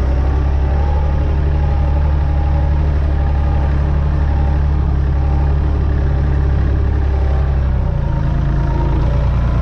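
Massey Ferguson 135's three-cylinder diesel engine running steadily, with a slight change in its low note about eight seconds in.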